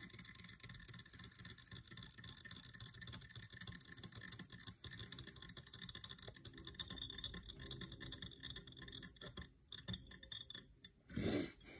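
Faint, irregular light clicking and rustling of fly-tying thread being wound around a dry-fly hook with a bobbin. A brief louder noise near the end.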